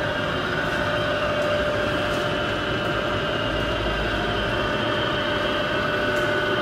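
Steady machine hum with a steady whine over it, holding the same level throughout.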